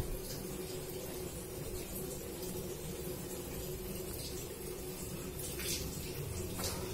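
Light rustling and scraping of paper-covered cardboard as the divider panels inside a cardboard box are pressed into place, over a steady background hum and hiss. The rustles are clearest near the end.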